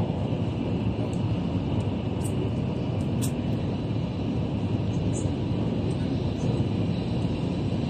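Steady rumble of a Taiwan High Speed Rail train running at speed, heard inside the passenger cabin, with a few faint brief ticks.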